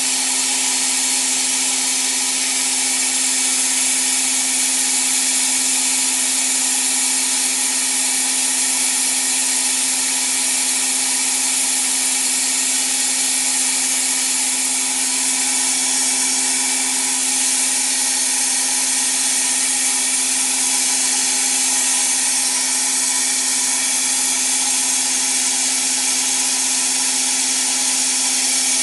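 Gas-dynamic (cold) spray gun blasting compressed air and metal powder onto a turning steering-rack shaft: a steady loud hiss with a constant hum underneath.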